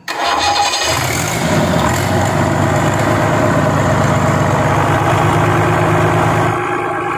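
A freshly overhauled Fiat harvester diesel engine starts up abruptly and settles into a steady run. It drops a little in level about six and a half seconds in.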